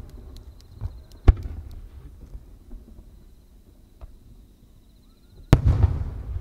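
A fireworks display. There is a single sharp bang about a second in. About five and a half seconds in, a large aerial shell bursts overhead with a loud blast and a long rumbling echo.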